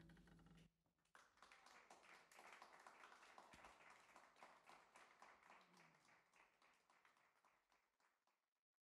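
The jazz quartet's last chord rings briefly and stops, then an audience applauds, faint and fading out near the end.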